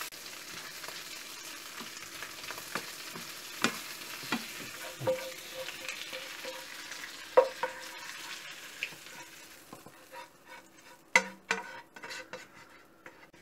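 Prawns sizzling in garlic oil in a non-stick frying pan, stirred with a spatula that scrapes and knocks against the pan now and then. About ten seconds in the sizzle dies away, leaving a few sharp knocks and scrapes as the prawns are scraped out of the pan.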